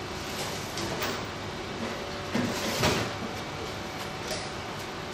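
A few brief knocks and scrapes of parts being handled, the strongest pair about two and a half to three seconds in, over a steady background hiss.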